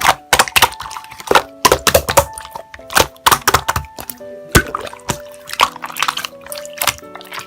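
Slime being pressed and squished by hand, giving sharp wet pops and clicks several times a second, over piano background music.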